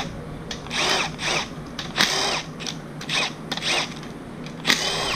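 A handheld power tool, such as a cordless drill, triggered in about seven short bursts. Each burst is a brief whine that rises and falls as the motor spins up and stops.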